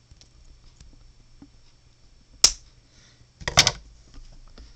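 Scissors snipping excess plastic off a small plastic cube washer: one sharp snip about halfway through, then a short burst of clicks and rattles about a second later.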